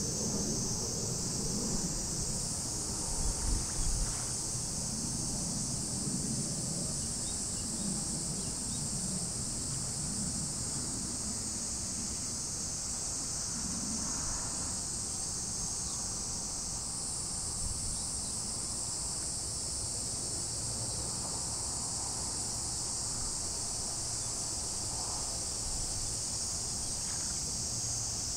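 A steady high-pitched chorus of insects, with a low rumble underneath that swells briefly about three seconds in.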